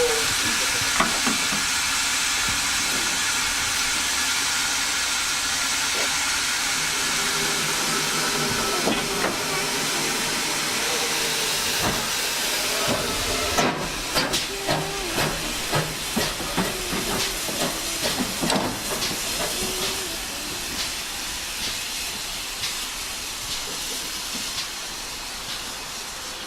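GWR 57xx class pannier tank steam locomotive hissing steam steadily. About halfway through, a run of irregular clanks and knocks begins as the train gets moving, and the hiss slowly fades.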